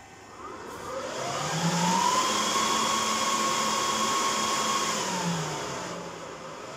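Dell PowerEdge 2950 server's cooling fans spinning up at power-on: a rising whine that climbs to a loud, steady full-speed whir for about three seconds, then falls as the fans slow toward idle speed. This is the noisy start-up burst typical of this server, which then idles down.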